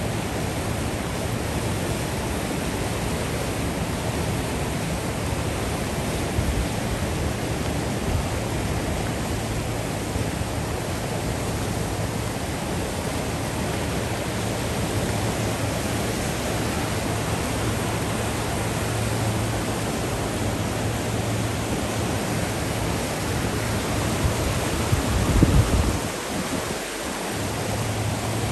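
Waterfall and rapids running high, with white water rushing steadily over the rocks. A brief low rumble comes near the end.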